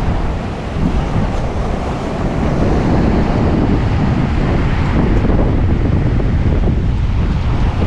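Strong wind buffeting the microphone over the steady wash of surf.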